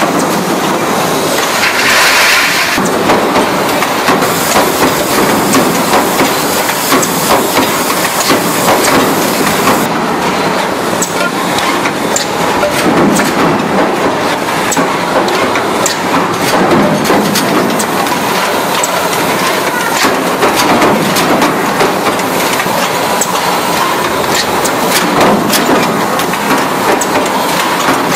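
Tin pencil-box production line running: stamping presses and pneumatic conveyor fixtures make a steady, loud mechanical clatter with many sharp clicks, and a short hiss about two seconds in.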